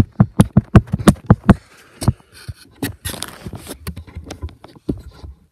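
Handling noise from a tablet camera mount being adjusted: a quick run of about nine loud knocks or clicks in the first two seconds, then a thump and a short scraping rustle, with a few lighter clicks after.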